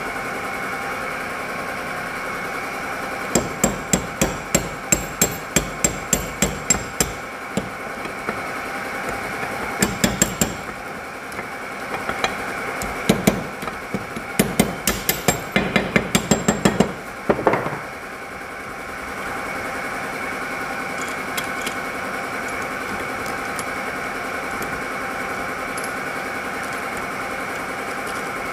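Hammer tapping on motorcycle engine parts during gearbox assembly: a run of about a dozen sharp taps at roughly three a second, a few more a little later, then a quicker run of taps that stops about two-thirds of the way through.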